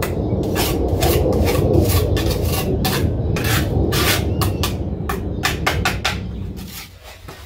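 Steel brick trowel scraping and scooping wet mortar in a bucket, a quick run of rasping strokes about three a second over a low steady rumble. The strokes die away near the end.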